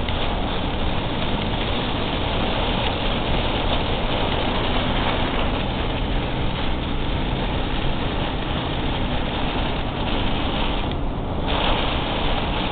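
Steady rushing noise of a car driving in heavy rain, heard from inside the car: road and rain noise with a low engine hum underneath. The higher hiss drops away briefly about eleven seconds in.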